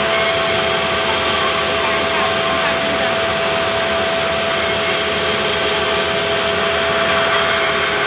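Sawmill band saw running steadily while a slab of pulai wood is fed through it: a constant whine over the machine's noise.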